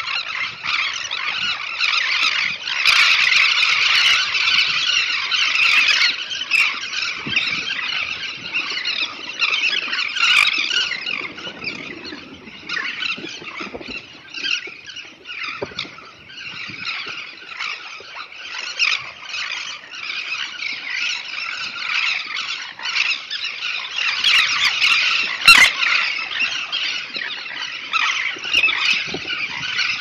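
A large flock of elegant terns calling together over their nesting colony: a dense, unbroken chorus of high-pitched squealing calls that swells and eases, loudest in the first few seconds and again near the end.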